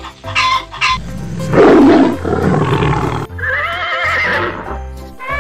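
Animal roar sound effect over background music, the loudest sound, lasting about two seconds. It is followed by a wavering, high-pitched animal call.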